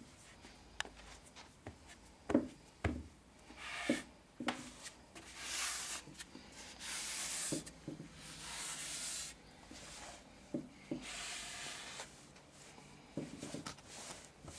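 Bare feet stepping and sliding in a layer of flour: a few soft thuds of footfalls, then several long swishing rubs a second or more each as the feet sweep through the flour, then more light steps near the end.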